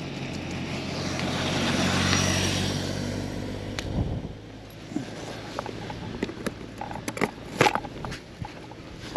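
A motor vehicle's engine hum with a swelling, hissing rush that is loudest about two seconds in, as of a vehicle passing close by. It breaks off abruptly at about four seconds and gives way to scattered sharp clicks and scrapes.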